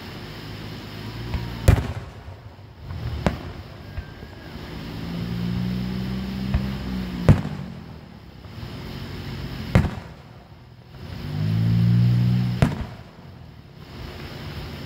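Aerial fireworks shells bursting overhead, about five sharp booms a couple of seconds apart. Between them a low drone swells up twice, about as loud as the booms.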